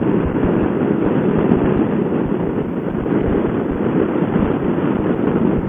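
Steady wind rush over the microphone of a Honda motorcycle riding at speed, with its engine running underneath as it overtakes a car.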